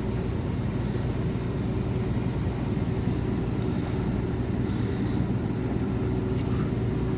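Steady drone of a semi-truck's engine and tyres on the road, heard from inside the cab while driving, with a constant low hum and no change in pitch.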